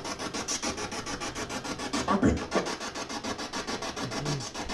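Spirit box sweeping through radio stations: choppy static hiss pulsing about ten times a second, with brief snatches of sound breaking through about two seconds in and again near the end.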